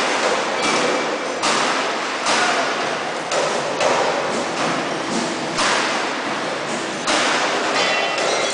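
Heavy metal bangs, irregular and about one every second, ringing and echoing over the steady din of a large railway coach workshop hall.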